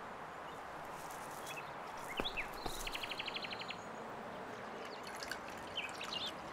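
Outdoor ambience with birds chirping: a few short high chirps and, about two seconds in, a quick trill of about eight rapid repeated notes over a steady hiss.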